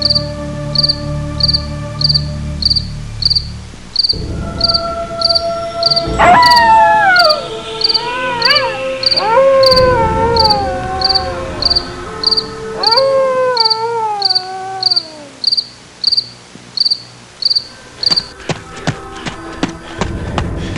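Crickets chirping in a steady pulse about twice a second over a low, sustained music drone. In the middle come several long, wavering cries that rise and then fall in pitch, and near the end a quick run of taps or knocks begins.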